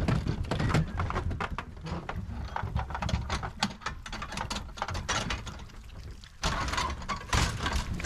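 Lambs' hooves clattering and knocking on the floor and ramp of a livestock trailer as a batch is let out, with knocks and rattles from the trailer's metal gate and partition. About six and a half seconds in, the clatter turns suddenly louder and busier as the flock rushes down the ramp.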